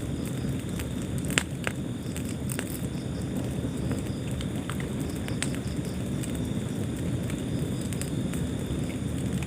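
Fire burning in a fireplace: a steady low rumble with scattered crackles and pops, the sharpest pop about a second and a half in.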